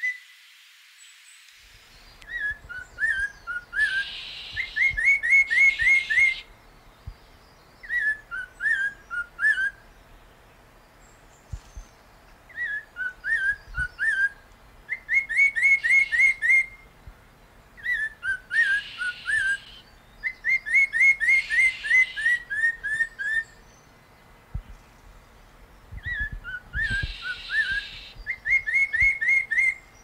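Chestnut-hooded laughingthrush singing: loud phrases of rapid whistled notes, repeated every few seconds after a short silence at the start. Phrases of looping, falling notes alternate with runs of quick upward-sweeping notes.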